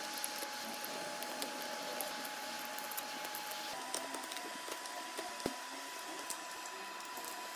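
A hot-air tool blowing with a steady hiss and a thin whine that steps up slightly in pitch a little before halfway, while a pointed blade scrapes and chips shattered iPhone back glass in many small sharp clicks and crackles.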